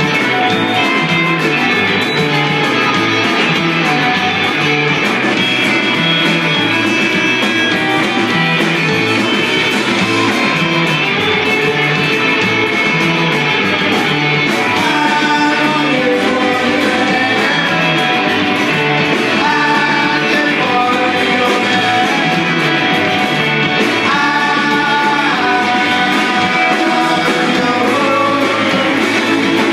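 Live rock band playing loud guitar music with singing.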